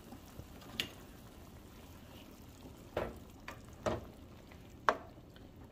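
Guajillo and ancho chiles sizzling faintly in oil in a nonstick skillet, with a spoon stirring them and knocking against the pan several times about three to five seconds in.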